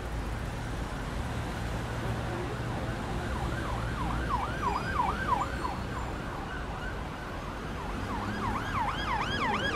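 Emergency-vehicle siren sweeping rapidly up and down, about three times a second, over a steady low rumble of street traffic. The siren comes in about three seconds in, breaks off, and starts again near the end.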